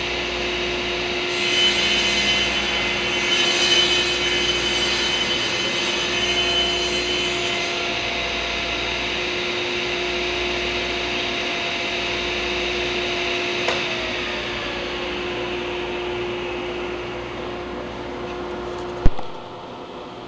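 Table saw running with a steady hum while its blade cuts through a hardwood cutting-board blank, the cut louder and hissier for several seconds early on. About two-thirds of the way through the pitch falls and the sound tapers off as the saw winds down, and a single sharp knock near the end is the loudest sound.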